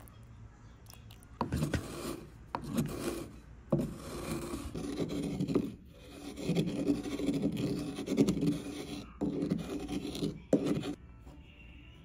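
Stone pestle grinding wet pigment powder in a stone mortar: irregular scraping and rubbing strokes of about a second each, starting about a second and a half in and stopping near the end.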